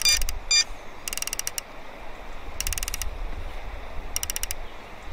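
Fishing reel being cranked in three short turns to tighten the line, its mechanism giving a rapid clicking buzz with each turn.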